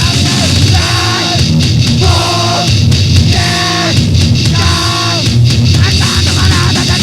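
Loud, distorted hardcore punk band recording, guitar and drums, with a higher phrase of pitched notes repeating about once a second over a dense low end.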